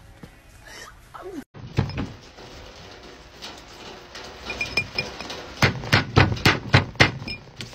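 Hand slaps on an upside-down drinking glass on a tabletop, in an egg smash challenge: one thud near the start, then a quick run of about seven sharp slaps in a second and a half toward the end.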